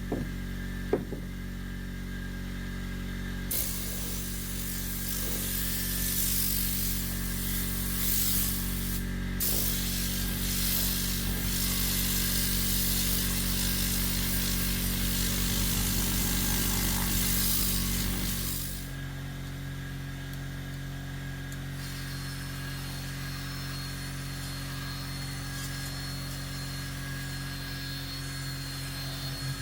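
A motor running steadily with a hum, joined by a loud hiss from about three seconds in that stops about eighteen seconds in, leaving the quieter hum.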